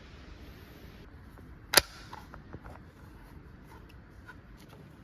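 A single sharp plastic click a little under two seconds in, with a few faint ticks around it, from a replacement dashboard air vent of a BMW 6 Series being handled and fitted into its housing.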